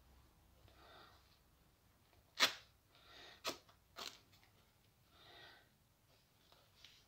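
Terry-cloth towel and turban being folded by hand: soft fabric rustling, with three short, sharp sounds between about two and a half and four seconds in, the first the loudest.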